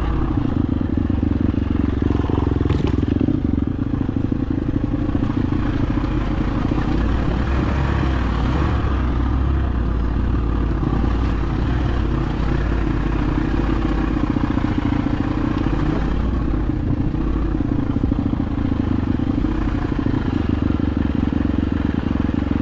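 Dirt bike engine running steadily as the bike is ridden along an off-road trail.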